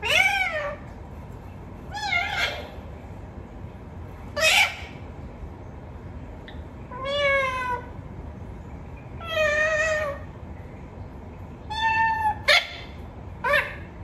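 Rose-ringed parakeet calling: about eight short, drawn-out calls a second or two apart, several rising then falling in pitch, with two coming close together near the end.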